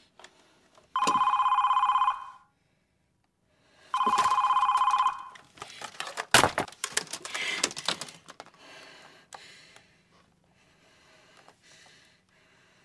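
Telephone ringing twice with a warbling electronic ring, each ring about a second long with a two-second gap between. A few seconds later comes a sharp clack from the handset.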